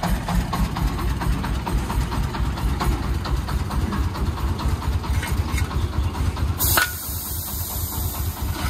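Three-wheeled công nông dump truck's diesel engine idling with a steady low chugging. About six and a half seconds in, a short, loud hiss cuts in and fades to a lighter hiss; light clicks of bricks being scraped sound now and then.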